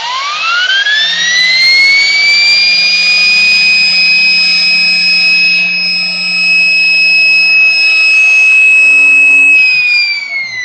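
Micro jet turbine rotor spun on a balancing machine for a balance-check run, measuring the unbalance left after material was removed. A high whine climbs quickly in pitch as it spins up, holds steady, then falls away as it spins down near the end.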